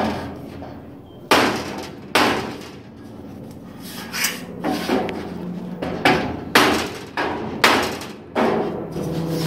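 A hammer striking a block of wood held against the sheet-metal end cap to shape it to the quarter panel. There are about nine separate, unevenly spaced blows, each ringing briefly.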